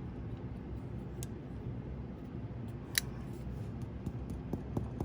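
Quiet handling noise with a few small sharp clicks, the loudest about three seconds in, and several light ticks near the end.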